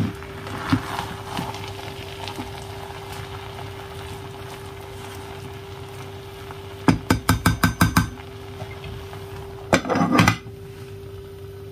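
A plastic rice paddle stirs and scrapes rice in an electric rice cooker's pot over a steady low hum. About seven seconds in there is a quick run of about eight sharp knocks. The lid then clatters onto the pot about ten seconds in.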